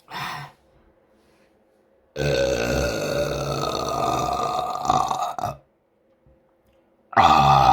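A woman belching: a short burp at the start, then a long, drawn-out burp of about three seconds, and another loud burp beginning near the end.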